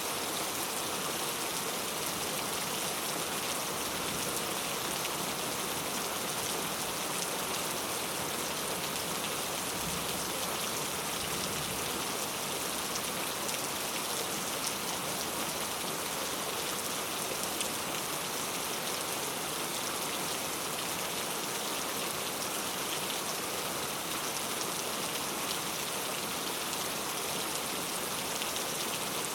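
Heavy rain falling steadily, an even wash of rain noise with the patter of drops.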